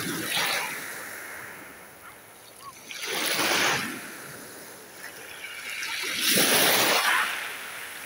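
Small sea waves washing in, a swell of rushing water noise about every three seconds, three times, the last the loudest.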